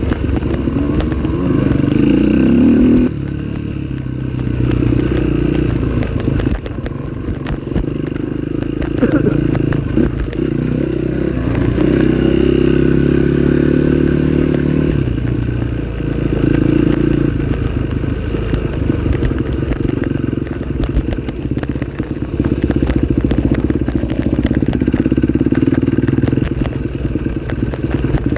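Off-road trail motorcycle engine running under load, its revs rising and falling every few seconds as it is throttled on and off, with some clatter over the terrain.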